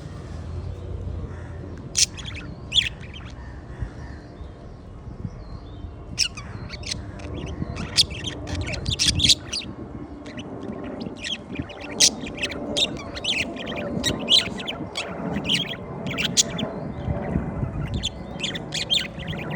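Birds calling: short, sharp high chirps, a couple about two seconds in, then many overlapping ones from about six seconds on, over a low steady rumble.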